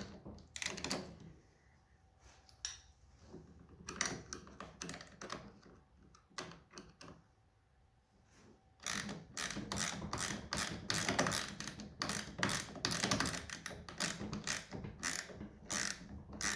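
Ratchet wrench clicking as the 7/16 clamp screws of a steering-wheel spinner knob are snugged down onto a plastic steering wheel. The clicks come in scattered short strokes at first, then turn into a fast, steady run of ratcheting from about nine seconds in.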